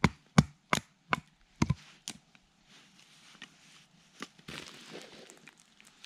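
Firewood being split by batoning: a wooden club knocks on the spine of a knife driven down through a stick, six sharp knocks in about two seconds. Softer rustling follows later.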